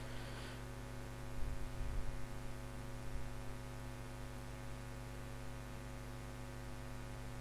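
Steady electrical mains hum on the recording, with a few soft low rumbles about one to three seconds in.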